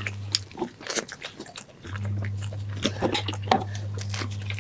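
Close-miked eating sounds: chewing of a soft chicken shawarma wrap, with wet mouth clicks and smacks at irregular moments. A steady low electrical hum lies under it and cuts out for about a second and a half near the start.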